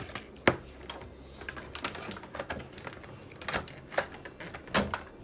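Irregular sharp plastic clicks and taps from children's Oral-B electric toothbrushes being handled, their brush heads pulled at and pushed back on; the loudest click comes about half a second in. The motors are not running.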